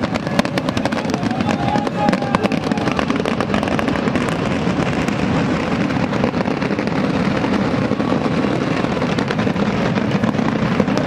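Firecrackers going off in rapid, irregular crackling volleys, with music underneath.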